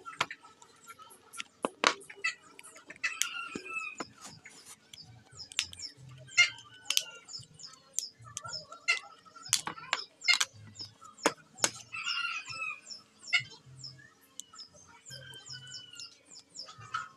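Irregular sharp plastic clicks and taps as the case of a Brica B-Pro Alpha action camera is pried at and handled on a wooden table. Chickens cluck now and then in the background, over a faint steady hum.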